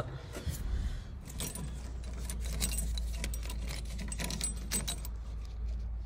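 A bunch of car keys jangling on their ring as they are handled, with many small jingling clicks over a low steady hum.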